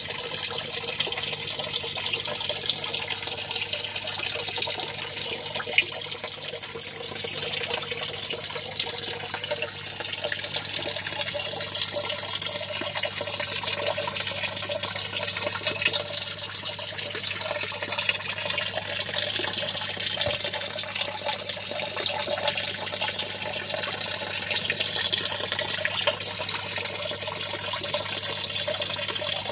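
Small electric submersible pump in a fish tank churning the water: a steady rushing splash of water at the surface over a constant low hum.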